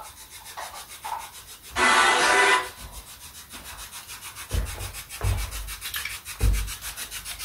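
Spirit box sweeping radio stations: a short burst of hissing static about two seconds in, over a faint, fast, even ticking from the sweep. A few dull low thumps come later on.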